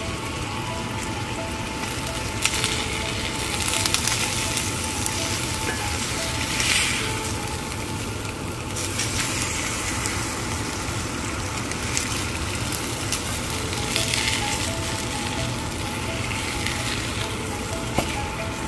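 Mackerel fillets sizzling steadily as they fry on parchment paper in a cast-iron skillet, the sizzle swelling louder every few seconds. Near the end a spatula scrapes under a fillet and turns it over with a short knock.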